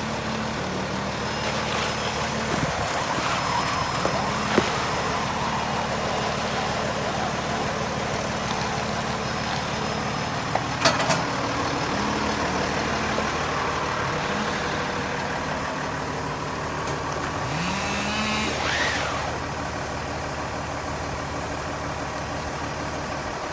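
Fire truck's engine running as the truck manoeuvres slowly, its pitch rising in short sweeps several times as it is throttled up, with a few sharp knocks along the way.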